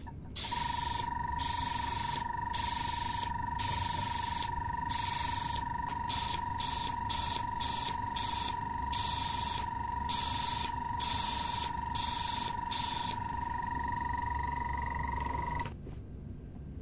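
Airbrush spraying paint over the steady high whine of its small compressor. The hiss is broken by brief pauses about once a second. The hiss stops a couple of seconds before the whine, which rises slightly and then cuts off near the end.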